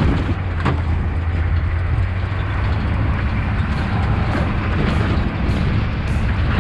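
Off-road vehicle driving over a dirt track: a steady low engine drone with rushing road and wind noise, and a single knock about half a second in.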